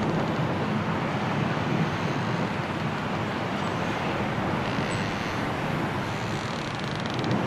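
Strong wind blowing steadily in a snowstorm, an even rushing noise with no let-up.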